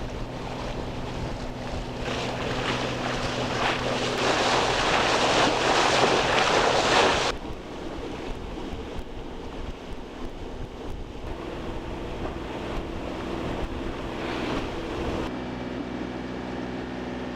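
Wind buffeting the microphone and water rushing along a sailboat's hull, over a steady low hum. The rushing builds over the first seven seconds, then drops off abruptly to a quieter wash.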